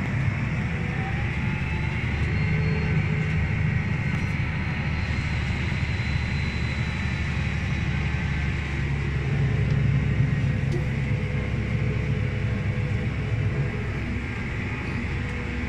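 Claas Axion 960 TerraTrack half-track tractor's six-cylinder diesel engine running steadily under load, heard from inside the cab as it climbs a slope. A faint high whine sits over the low engine hum.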